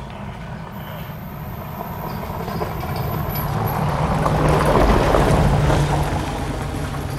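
A motor vehicle driving past, its noise growing louder to a peak about five seconds in and then fading as it moves away.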